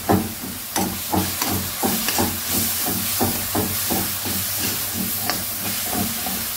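Chopped onions and curry leaves sizzling in hot oil in a wok, a steady hiss, while a spatula stirs and scrapes the pan about three times a second.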